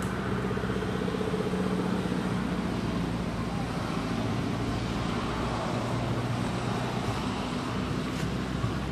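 A steady low motor hum over an even rushing noise, holding level throughout.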